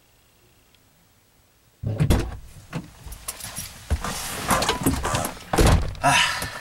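Near silence, then from about two seconds in, clattering and knocks as a car's driver's door is opened and then shut with a heavy thump about a second before the end, mixed with keys jangling.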